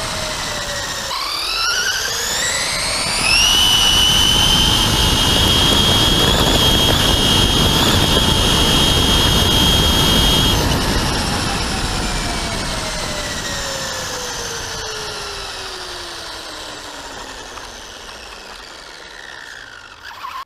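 Electric motor and gearbox of a Traxxas Slash 2WD RC truck, heard from a camera mounted on the car, whining over tyre and road noise. The whine climbs steeply as it accelerates about a second in, holds high and steady at full speed for about seven seconds, then winds down slowly as the car coasts.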